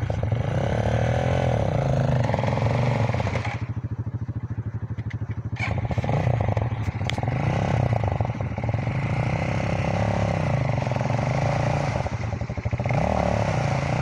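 Dirt bike engine revving up and down, easing off briefly about four seconds in. The bike is stuck in a deep mud rut and is being revved to free it, its rear wheel spinning in the mud.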